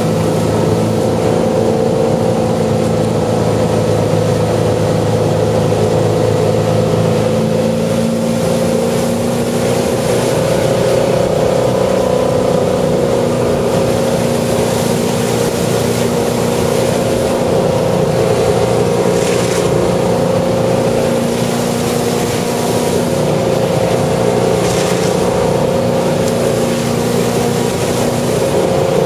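Ski boat's engine running steadily at towing speed, pulling a slalom water skier, over a steady rush of wind and water.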